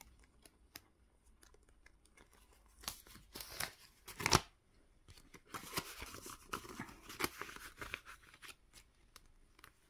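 Paper cash envelopes crinkling and rustling as they are handled in a ring binder. The rustling comes in two spells, the first about three seconds in and ending in one sharp, louder crinkle, the second longer, from about five and a half to eight seconds.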